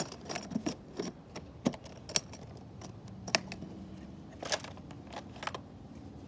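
Metal wrenches being handled, clinking against each other in a dozen or so light, irregular metallic clicks. A faint steady hum comes in about halfway.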